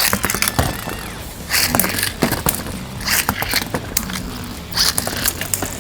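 Several Beyblade spinning tops spinning and colliding in a plastic stadium: a run of sharp clicking hits, with a louder rushing scrape about every second and a half.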